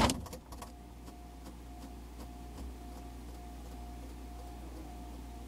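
A sharp knock at the very start, then a steady low hum with a faint thin tone above it and a few light ticks.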